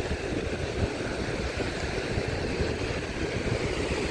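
Wind buffeting the microphone in a steady low rumble, over the wash of surf on the shore.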